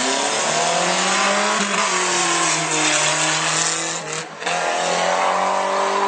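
Two drag-racing cars' engines at full throttle, their pitch climbing through the gears with a drop at a shift about two seconds in. The sound dips briefly about four seconds in.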